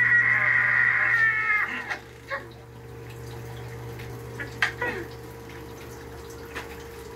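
A drawn-out high whining cry, about two seconds long at the start and falling slightly at its end, like an animal's call; afterwards only a few faint clicks over a steady low hum.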